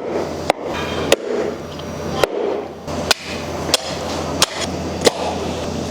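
Cleaver chopping through a lamb skeleton on a chopping board: sharp, hard strikes about every two-thirds of a second, some nine in all.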